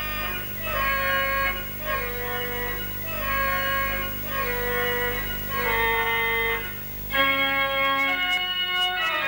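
Background organ music: short phrases of held chords that swell and fade about every second and a half, then a louder sustained chord near the end.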